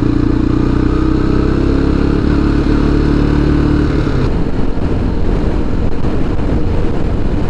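Motorcycle engine running while riding. It holds a steady, slightly rising note for about four seconds, then the clear engine note breaks up into a rougher rushing sound.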